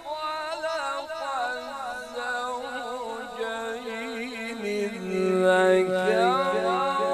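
Male Quran reciter's voice drawing out one long, ornamented melodic phrase in tajweed style, the pitch wavering and gliding. It is amplified through a microphone and PA with an echo effect, and it swells louder on a lower held note about five seconds in.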